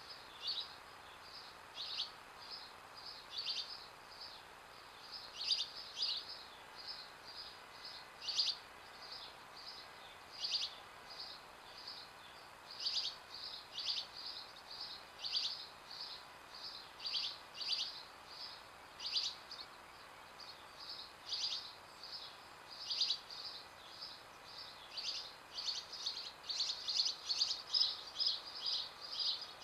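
Small songbirds chirping: short, high chirps repeating irregularly, coming thicker and faster near the end, over faint steady background noise.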